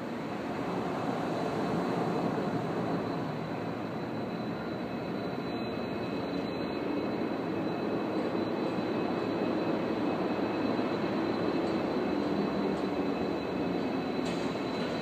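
Two Union Pacific diesel locomotives approaching at the head of a freight train, their engines running with a steady low drone that grows slightly louder.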